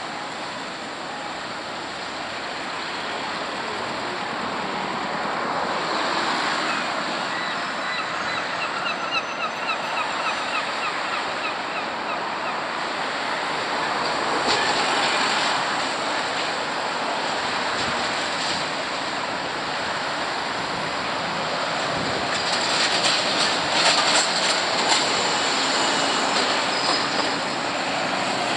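Steady street traffic noise at a tram stop, slowly getting louder. About a third of the way in there is a quick run of short repeated high calls, and near the end a cluster of sharp clicks and rattles.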